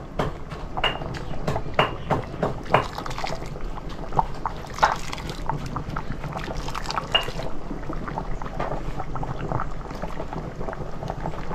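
Coconut-milk chilli curry with smoked fish simmering in a pot: the gravy bubbles with irregular pops and blips over a steady low hum.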